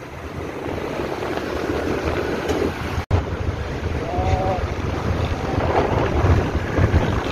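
Wind rushing over the microphone of a moving motorcycle, with a steady low rumble of engine and road noise. It cuts out for an instant about three seconds in, and the rumble is stronger after that.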